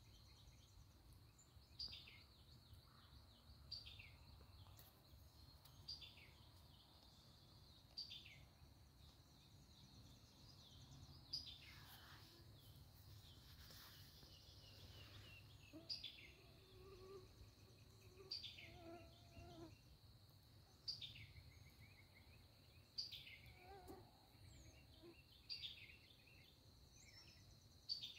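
Faint woodland ambience: a songbird repeats a short, high, descending call about every two seconds over a steady high-pitched insect drone.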